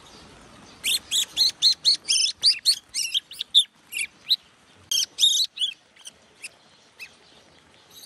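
Fledgling bird begging for food as it is hand-fed: a fast run of short, high chirps, four or five a second, starting about a second in and breaking off after about five seconds, followed by a few single chirps.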